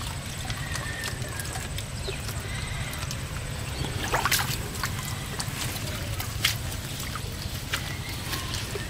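Water sloshing and running out of a plastic-bottle fish trap as it is lifted out of a pond, with the loudest splash about four seconds in and a few smaller knocks later. A steady low rumble runs underneath.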